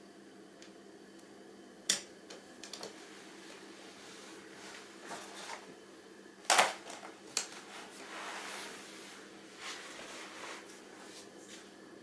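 Handling of a folding stainless-steel rod fire stand and its thin metal mesh: a few sharp clicks and taps, the loudest about six and a half seconds in, with crinkling and rustling of the mesh and wrapping between them, over a faint steady hum.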